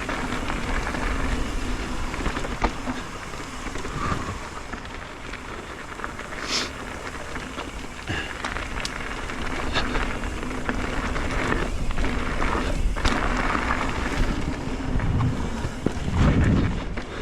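Wind noise and rattling from a mountain bike rolling, with scattered sharp clicks and knocks and a low rumble that swells near the end.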